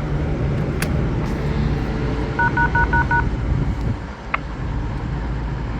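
Four short, evenly spaced two-tone beeps from a railway platform passenger information point after its green button is pressed, the tone that comes before its automated next-train announcement. A steady low rumble of station background noise runs underneath.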